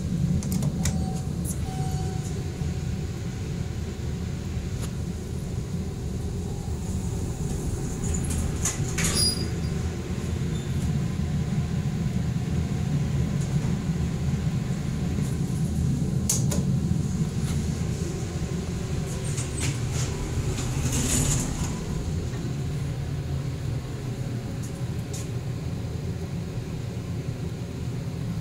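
Steady low rumble inside a traction elevator car, with a few light clicks partway through.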